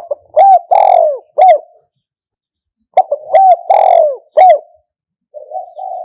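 Spotted dove cooing: two phrases of four coos about three seconds apart, each with a longer middle note, then a softer, rougher call near the end.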